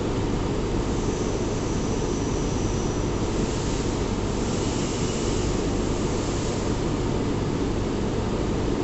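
Steady industrial machinery noise of a machine shop: a constant low rumble with a hiss that swells in the middle, and a faint high whine about a second in.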